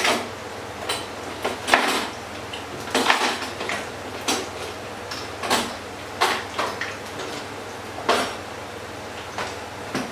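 Metal kitchen utensils and pans clinking and clattering: about a dozen irregular sharp knocks, over a steady low hum.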